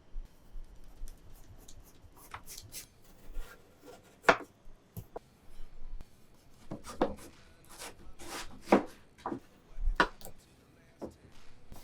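Knife cutting watermelon on a cutting board: irregular, unevenly spaced knocks of the blade meeting the board, the loudest about four seconds in and a quick run of them in the second half.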